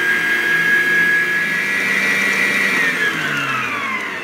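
Electric stand mixer running with its flat beater turning through a bowl of slime mixture: a steady motor whine that falls in pitch from about three seconds in as the mixer is switched off and winds down.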